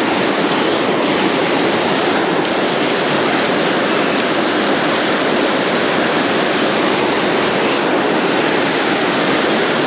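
Fast river current rushing steadily over a rocky riffle and small rapids, the river running high on water released from an upstream dam.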